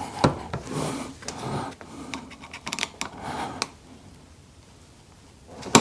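Metal clicks and scrapes of a Phillips screwdriver working at the clip of a roller chain's master link, trying to pry it off. The clicks are irregular and die away a little before four seconds in.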